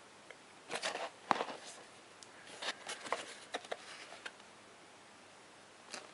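Hands handling a small cardboard phone box: a string of light clicks, scrapes and rustles as it is picked up and turned over, dying away about four seconds in.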